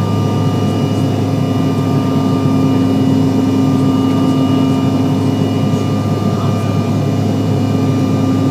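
Cabin noise of a CRJ-700 regional jet climbing after takeoff: a steady drone of its rear-mounted General Electric CF34 turbofans and rushing air, with a few held tones in it.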